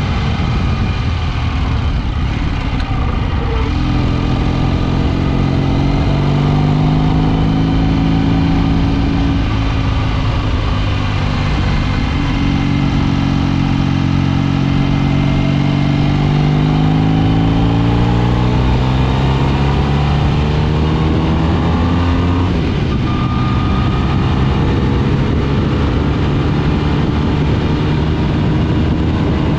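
BSA A65 650 cc parallel-twin motorcycle engine running under way, heard from the rider's seat with wind rush. The engine note holds and then climbs as the bike accelerates hard, and drops suddenly about three quarters of the way through at an upshift.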